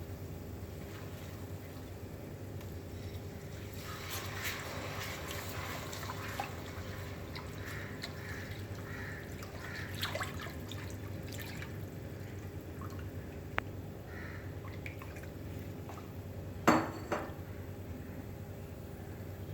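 Liquid sounds from cooking in a pan: small bubbling and splashing in the middle stretch, with scattered light clinks of a utensil against the pan and one louder clank near the end, over a steady low hum.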